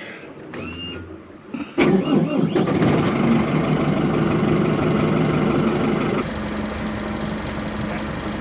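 The boat's engine being started: a brief crank, then it catches a little under two seconds in and runs fast, settling to a lower, quieter idle about six seconds in.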